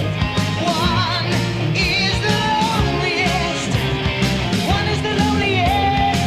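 Background rock music with a sung vocal over guitar and a steady drum beat.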